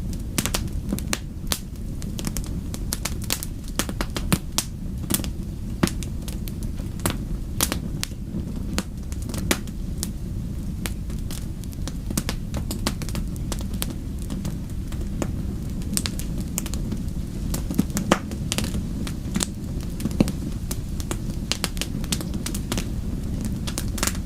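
Wood fire crackling: frequent sharp, irregular pops and snaps over a steady low rumble of flames.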